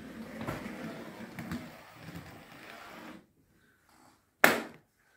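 Small model saddle-tank locomotive running along the track, its motor and wheels making a steady rattling whirr that stops abruptly about three seconds in. About a second later comes a single sharp, loud knock.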